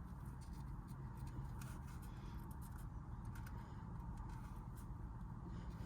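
Faint, scattered light ticks from a tool working the cap screws of a shift knob adapter as they are snugged up, over a steady low hum.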